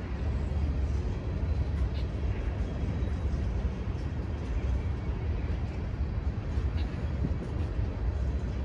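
Freight train of hopper cars rolling past: a steady low rumble of steel wheels on rail, with a couple of brief faint high-pitched ticks.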